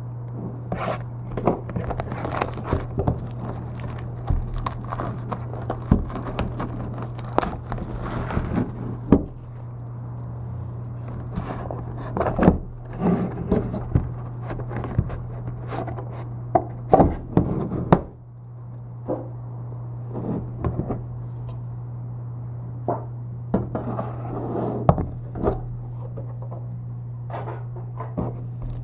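Cardboard and plastic packaging of a sealed trading card box being handled and opened: irregular scrapes, crinkles and clicks, with a hissing tear-like rustle during the first nine seconds or so. A steady low hum runs underneath.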